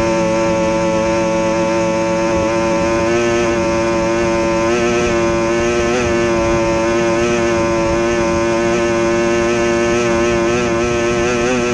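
Outboard engine of an SST 60 tunnel-hull race boat running flat out at a steady high pitch, with a slight waver about five seconds in and again near the end.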